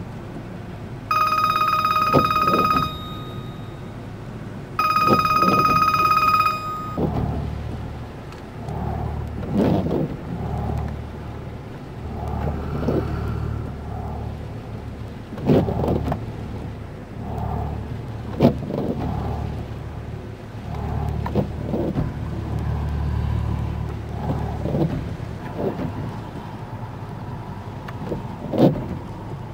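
A car horn sounds two steady blasts of about two seconds each, heard from inside the car. Then comes a low, uneven rumble with a few sharp thumps.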